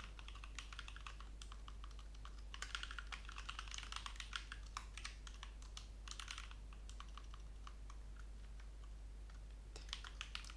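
Typing on a computer keyboard: quick runs of key clicks, densest a few seconds in, then sparser, scattered keystrokes.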